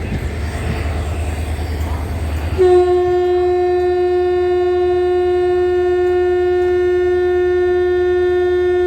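WAP-4 electric locomotive's horn sounding one long, steady blast that starts about two and a half seconds in, over a low rumble from the train.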